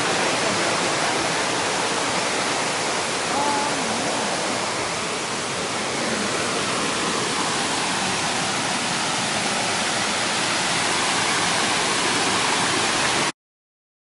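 Steady rush of a forest waterfall, a dense even hiss of falling water, which cuts off abruptly near the end.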